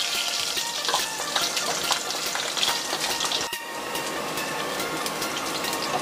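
Garlic cloves sizzling and crackling in hot oil with mustard and cumin seeds, frying golden. The sizzle dips briefly a little past halfway.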